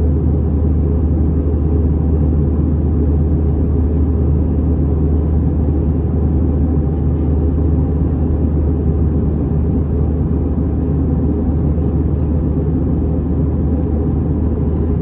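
Steady low rumble inside the cabin of a Lufthansa Airbus A319-100 in flight after take-off: its CFM56 jet engines and the rush of air past the fuselage, heard from a window seat.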